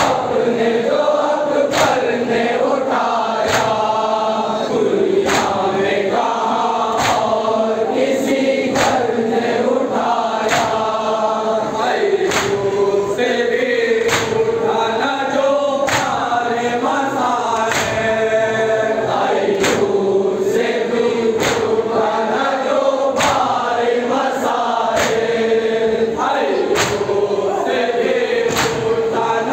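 A crowd of men chanting a noha (Shia mourning lament) in unison behind an amplified lead voice, over matam: many men beating their chests with open palms together, a sharp even slap a little more than once a second.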